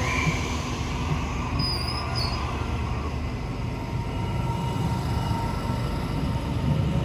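Electric passenger train running past on the rails with a steady low rumble, and brief high-pitched wheel squeals near the start and about two seconds in.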